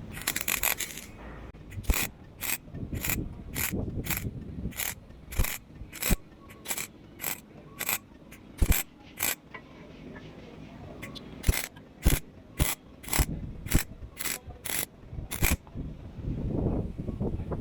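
A series of sharp mechanical clicks, about two a second, with a pause of a couple of seconds midway; a louder rushing noise starts near the end.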